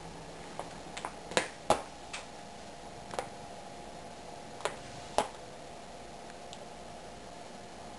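A few short, sharp clicks and taps at irregular moments, two close pairs the loudest, over a faint steady hum.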